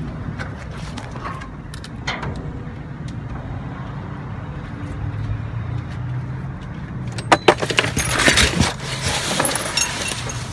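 Plastic bags and cardboard rustling and crinkling as dumpster trash is shifted, starting about seven seconds in, over a steady low hum.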